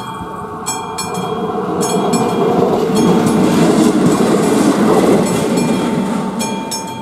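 A ČD class 810 diesel railcar running over a level crossing, swelling to its loudest about three to five seconds in. The crossing's electric warning bell rings in quick repeated strokes at the start, is drowned out as the railcar passes, and is heard again near the end.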